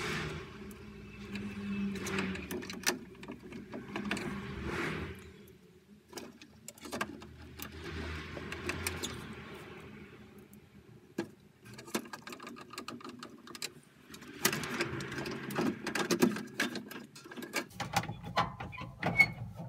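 Handling noise from a combi boiler's plastic casing being put back together: a screwdriver working its cover screws, then the front control panel being fitted. Scattered clicks, knocks and scrapes, busiest near the end.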